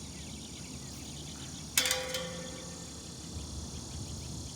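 Insects chirping in a steady, pulsing chorus, with one sharp click a little under two seconds in that rings on briefly.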